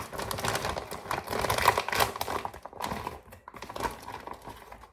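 Packaging of frozen chicken nuggets being opened and handled: dense, irregular crinkling and crackling that thins out and fades near the end.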